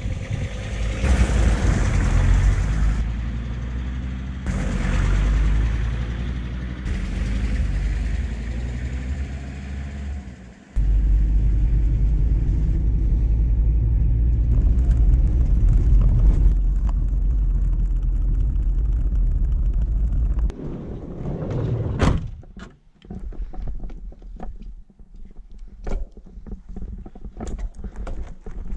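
Volkswagen T4 van driving: engine and road noise, first in short cuts as it goes by, then a steady low rumble from inside the cab for several seconds. Near the end a single sharp thunk, then irregular clicking and crunching.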